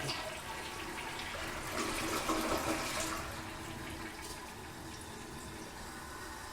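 Toilet flushing: water rushing and swirling down the bowl, swelling louder about two seconds in, then settling into a steadier, quieter rush of water.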